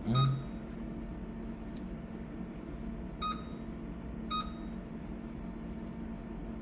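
Olympus disinfection machine's control panel giving three short electronic beeps: one right at the start with a soft low thud, then two about a second apart a few seconds later. A steady low hum runs underneath.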